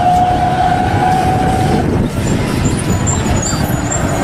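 A truck engine sound effect running loud and rough, with a steady whine over it for the first two seconds or so and a lower steady hum later.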